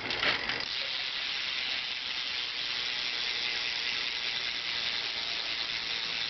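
BMX rear hub freewheel clicking as the back wheel spins, its pawls ratcheting so fast that the clicks run together into a steady buzz. It starts about half a second in and holds even throughout.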